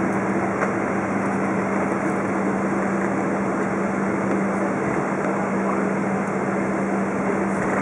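Steady cabin noise inside a Boeing 777-200 rolling along the runway after landing: an even rush of engine and air noise with a constant low hum.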